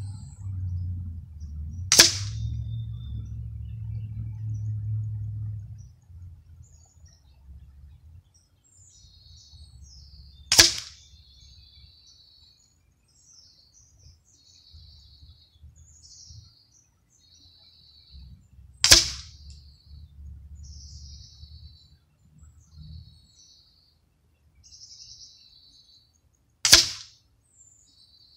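Custom Crosman 2400KT .177 CO2 air pistol fired four times, one sharp crack about every eight seconds, at a plastic toy soldier target. Birds chirp between the shots, over a low rumble.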